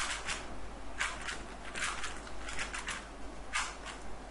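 Plastic QJ pillowed 3x3 puzzle cube being turned by hand: an irregular run of short clicks and clacks as its layers are twisted.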